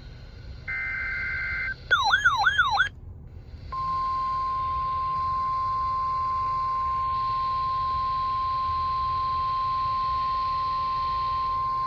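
NOAA Weather Radio alert tones: about a second in, a one-second burst of SAME digital header data tones, then a second of warbling, siren-like tone sweeping up and down about four times a second. From about four seconds in, the steady 1050 Hz weather radio warning alarm tone is held as one unbroken high tone, the signal that trips tone-alert receivers.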